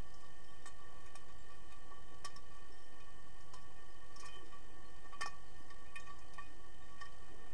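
Underwater pool sound picked up through a submerged camera: a steady low rumble with several faint steady tones running under it. Irregular sharp clicks break through, a handful of them, the loudest about five seconds in.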